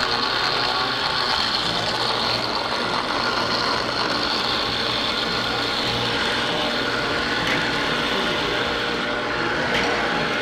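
Countertop bar blender running steadily, blending a scoop of ice with vanilla ice cream and liqueurs into a frozen drink.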